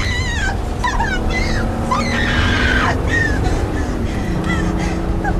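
A woman's high, wavering cries of distress over the low rumble of a car engine and a tense film score.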